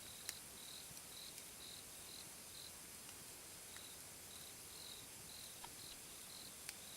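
A cricket chirping faintly in short regular chirps, about three a second, with a brief pause midway. A few sharp pops from a wood campfire cut through, the loudest about a third of a second in and another near the end.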